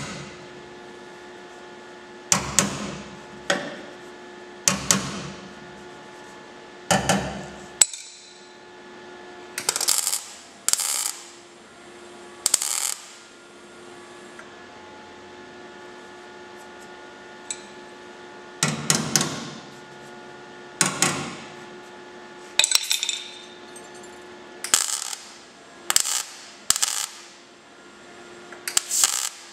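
MIG welder tack-welding a sheet-steel patch panel onto a car body: about a dozen short bursts of the welding arc, each under a second, with a pause of several seconds midway. A steady low hum runs underneath.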